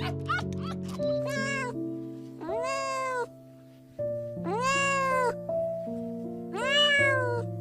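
Domestic cat meowing about four times, each meow rising and then falling in pitch, over background music with sustained notes.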